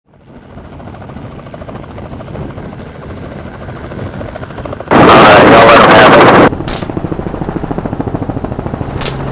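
Light helicopter's rotor blades beating, growing louder as it comes in low, then a very loud rush for about a second and a half as it passes right over the camera, cut off abruptly. After that the rotor beat goes on steadily, heard from aboard the helicopter.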